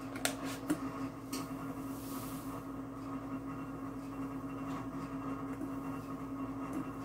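A few light clicks of a metal measuring spoon against a ceramic mixing bowl in the first second and a half, over a steady low electrical hum.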